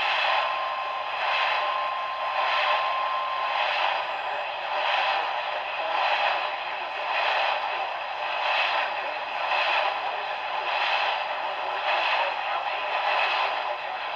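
Radio receiver static: a steady hiss that swells in a regular pulse about once a second, with a faint steady tone in the first few seconds.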